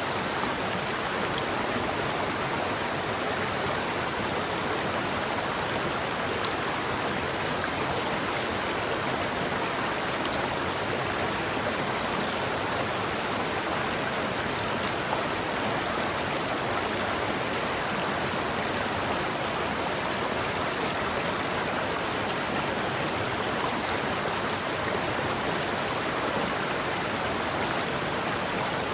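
River water flowing and rushing steadily, a constant even wash of sound.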